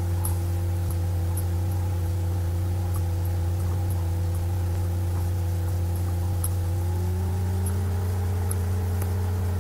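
A steady low machine hum whose tones rise slightly about seven seconds in, with faint light ticks now and then.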